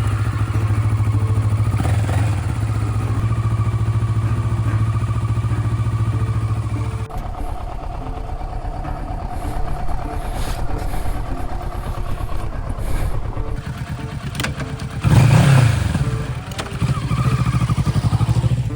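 Motorcycle engine running, most likely a Kawasaki Versys 650's parallel twin, with a steady note that changes about seven seconds in and a brief louder rev near the end.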